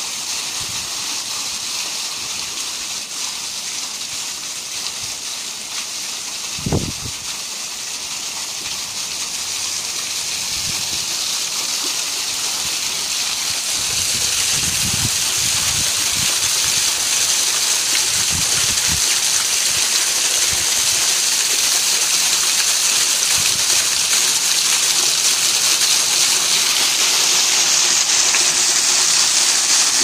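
Small waterfall splashing down a stacked stone wall into a shallow pool: a steady, hissing splash that grows louder toward the end. A brief low thump about seven seconds in.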